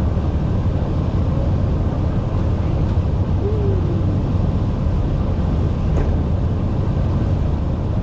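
Ferry's engines running steadily under way, with the propellers churning the wake: a loud, even low rumble with rushing water over it.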